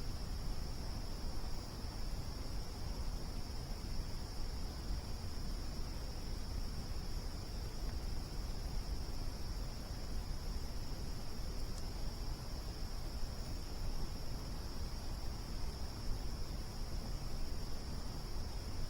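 A steady, unbroken trilling of night insects, crickets most likely, over a low rumble, with a single faint crackle about twelve seconds in.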